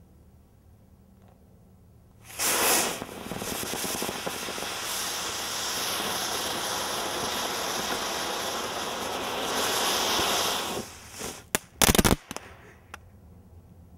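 Ground fountain firework spraying sparks with a loud, steady rushing hiss for about eight seconds, starting a couple of seconds in. It ends with a few sharp cracks.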